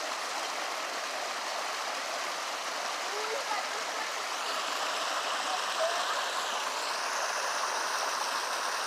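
Shallow rocky stream running and splashing over stones: a steady rush of water.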